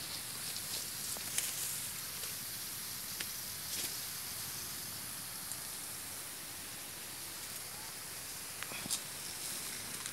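Outdoor ambience: a steady high hiss, with a few short, soft rustles and crackles from footsteps through grass and dry fallen leaves.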